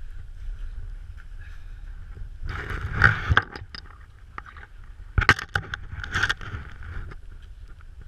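Two bursts of crunching and scraping in packed snow, with sharp clicks, the first a few seconds in and the second about two seconds later, over a steady low rumble.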